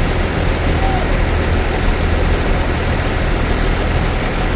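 Bus diesel engine idling close by: a steady low rumble.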